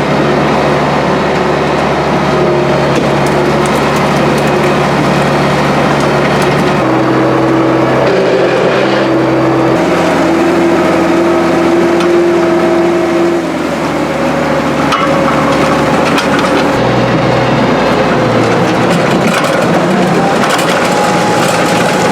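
International 1066 tractor's six-cylinder turbo diesel running under load as it pulls a box scraper over a rocky gravel road, its engine note stepping up and down a few times, with crunching and cracking of stones and gravel.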